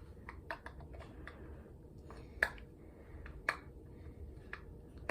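Small handling clicks and scrapes as the screw of a mini lamp's battery compartment is being worked loose, with three sharper clicks about a second apart in the second half.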